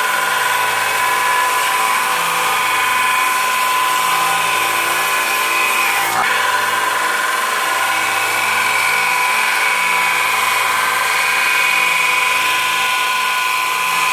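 Belt grinder running with a hardened Damascus steel blade pressed against the abrasive belt, grinding the scale off after tempering: a loud, steady high whine over a constant hiss.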